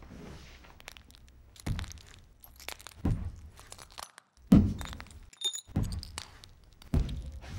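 A series of about six heavy thuds, one every second or so, the loudest in the middle, with a brief high ringing tone just after it.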